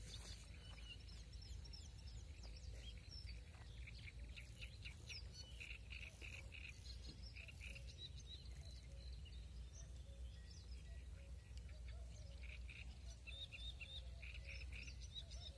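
Faint dawn chorus of songbirds chirping and trilling in quick repeated phrases, over a low steady rumble.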